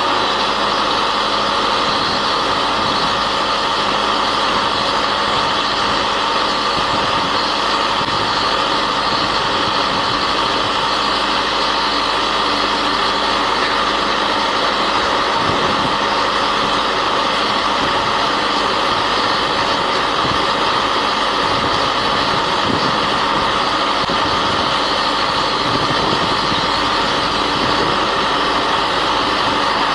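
Engine of a ROADSKY SC series auger drilling rig running steadily at an even level.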